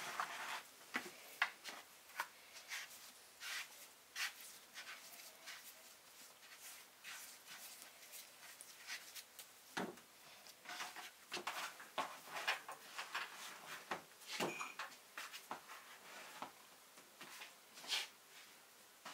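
Hands pulling off and squeezing sticky bread dough in a plastic bowl and patting it into balls on a floured wooden board: irregular soft squelches, slaps and taps, a few of them heavier.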